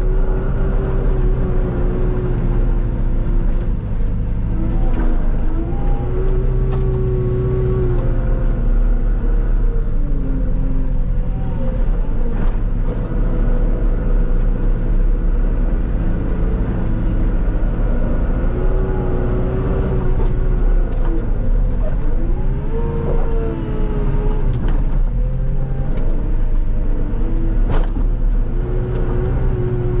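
Diesel engine of a wheeled teleskid skid steer running under load while it pushes snow with a box snow pusher, heard from the cab. Its pitch rises and falls several times with throttle and load, and there are a couple of sharp knocks.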